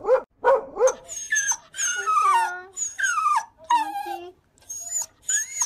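Wet poodle whining in a string of high, falling whimpers, each about half a second long, repeating with short gaps from about a second in.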